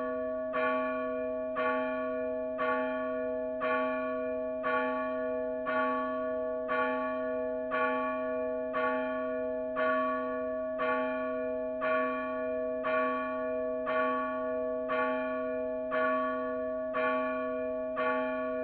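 A single bell tolling steadily at about one stroke a second, every stroke at the same pitch and each ringing on under the next.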